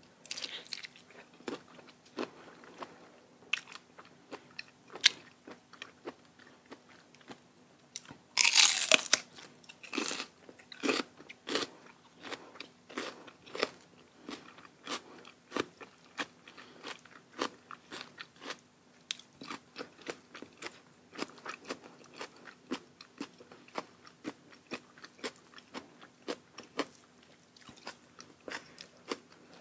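Close-up eating sounds: a person biting and chewing crunchy Thai salad and raw vegetables, a steady run of short sharp crunches with one louder, longer burst about eight and a half seconds in.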